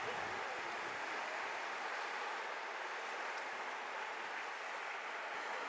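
Fast-flowing Adige river water rushing steadily, an even hiss without breaks.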